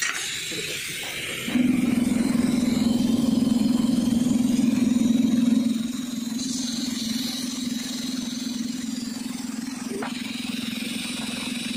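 A machine starts up about a second and a half in and runs with a steady low hum, louder for about four seconds and then a little quieter.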